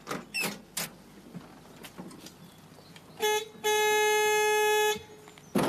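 A vehicle horn, most likely the van's, sounding a short toot and then one long steady blast of about a second. Three sharp knocks come in the first second before it.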